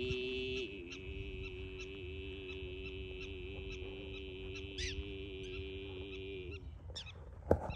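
Mongolian-style throat singing: one long, low drone with a high whistling overtone sung above it. It holds steady for about six and a half seconds and then stops, and a sharp knock follows near the end.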